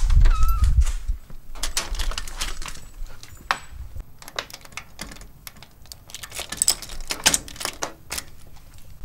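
Keys jangling and clicking as a key is fitted into a brass front-door deadbolt and worked, among irregular clicks and knocks of the door hardware. A low rumble of handling or wind on the microphone fills the first second.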